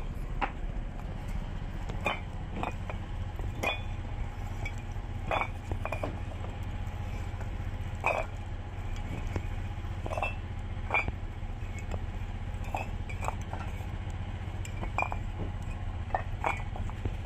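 Hard objects clinking and knocking, one every second or so at irregular intervals, over a steady low hum.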